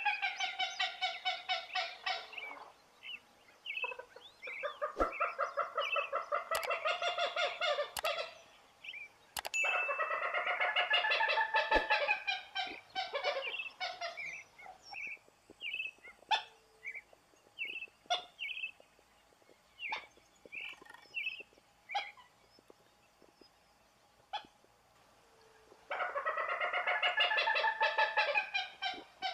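Common gallinule calling: long runs of rapidly repeated, harsh clucking notes, about seven a second, each run lasting a few seconds. A fourth run starts near the end. In the quieter middle stretch there are only scattered single notes.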